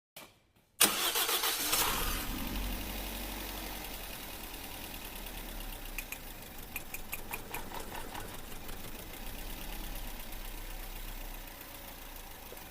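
An engine catches and starts suddenly about a second in, loud at first, then settles into uneven running with a misfire. A few sharp clicks come around the middle.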